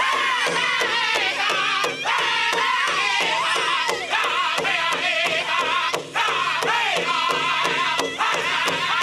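Powwow drum group singing a chicken dance song in high, wavering voices over a big drum struck in a fast, steady beat of about four strokes a second.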